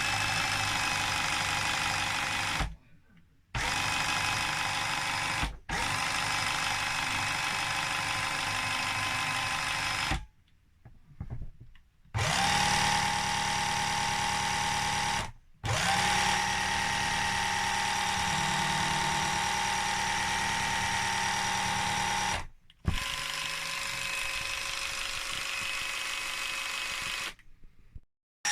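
Airsoft M132 minigun with a high-speed motor firing in long sustained bursts, about six of them with short pauses between, the motor whining steadily under a dense stream of rapid shots.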